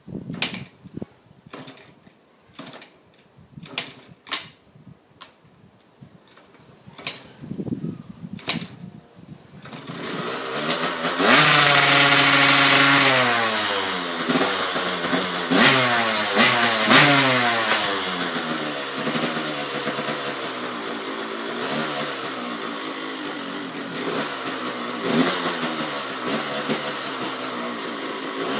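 2007 KTM 85 SX two-stroke single with a KTM Powerparts full exhaust system being kick-started: a string of knocks from the kick-start, then the engine catches about ten seconds in. It revs high, blips a few times, then keeps running with occasional blips.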